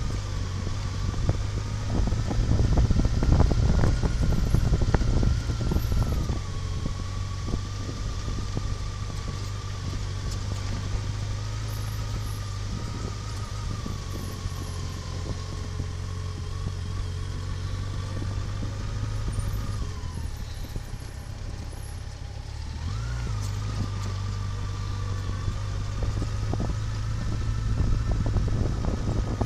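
Vehicle engine running steadily while on the move, with frequent knocks and rattles, heaviest in the first few seconds. The engine note sags about twenty seconds in and picks up again a few seconds later.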